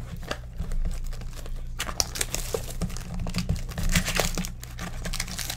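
Foil wrapper of a football trading-card pack being torn open and crinkled by hand: scattered crackles at first, turning into a dense run of crinkling about two seconds in.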